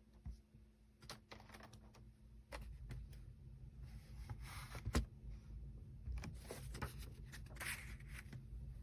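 Faint handling noises: scattered light clicks and taps, with two brief rustling swishes about four and a half and seven and a half seconds in.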